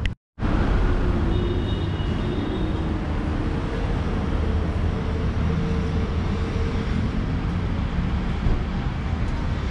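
Steady low rumble of road traffic and outdoor ambience, with a faint steady hum through the middle.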